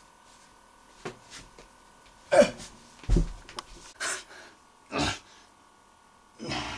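A person making a series of short, sharp gasps and snorting breaths, about six separate bursts with pauses between them. About three seconds in there is a low thump.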